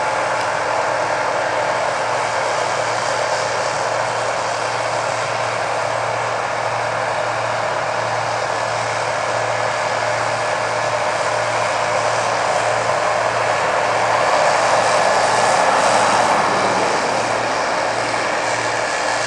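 Steady machine engine drone with a low hum and a few steady tones, swelling a little about fourteen seconds in and easing off near the end.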